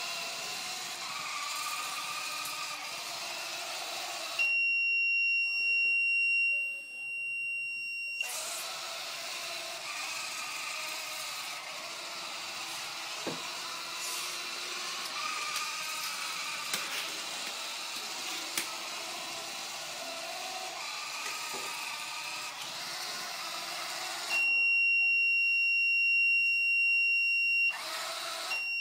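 The drive motors of a homemade tracked robot run as it moves, and twice its detection buzzer sounds a loud, steady high beep of three to four seconds, the robot's signal that it has sensed metal or a voltage.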